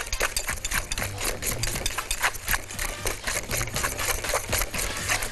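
Wire balloon whisk beating a thick flour-and-egg muffin batter in a glass bowl: quick, rhythmic strokes, several a second, with the wires clicking and scraping against the glass.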